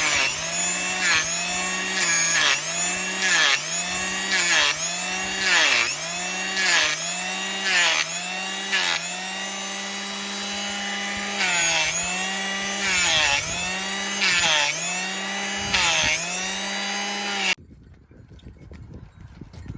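Handheld electric trimming tool whining as it is pressed against a donkey's hoof to grind away cracked horn, its pitch sagging under load about once a second. The motor stops abruptly near the end.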